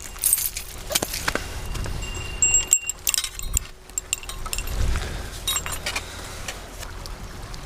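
Small bell clipped to a shore-casting rod tip jingling in irregular clinks as a fish strikes the set bait, the usual strike alarm on an ulua rod.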